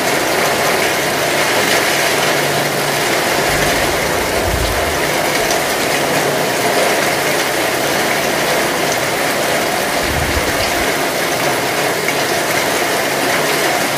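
Steady rain falling on roofs and a wet street, a dense, even patter. Two brief low rumbles come about four and ten seconds in.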